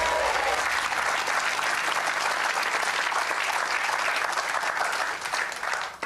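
Studio audience of a TV game show applauding as a box's value is revealed, with a few voices calling out at the very start. The clapping is dense and steady, then dies away just before the end.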